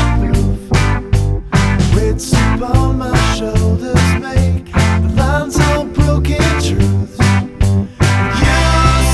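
Background rock music with a steady beat, guitar and singing.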